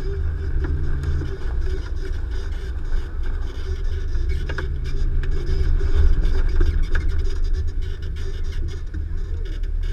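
Nissan Xterra's 4.0-litre V6 engine running with a steady low rumble at low, varying throttle while crawling off-road. A few sharp knocks or creaks come through over it.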